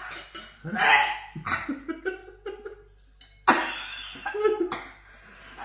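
Laughter and strained, breathy voice sounds from people whose lips are held open by mouth guards, with a loud breathy burst about three and a half seconds in.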